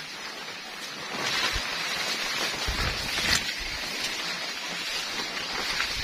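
Maize leaves rustling and swishing as a person pushes through a dense corn patch, brushing against the plants close to the microphone. A few low thumps of footsteps or handling come through in the middle.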